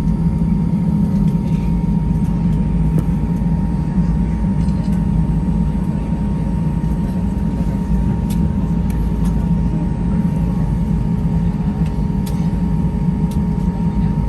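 Steady cabin noise inside an Airbus A320-200 on the ground after landing: a low, even rumble with a steady hum held over it, and a few faint clicks.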